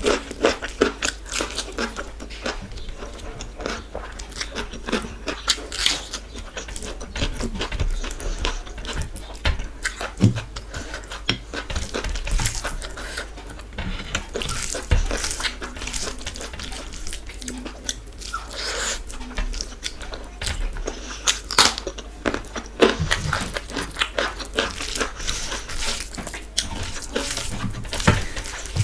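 Close-miked eating sounds: a person chewing a mouthful of rice and curry, with many short wet smacks and clicks from the mouth, along with fingers squishing and mixing rice and dal on a plate.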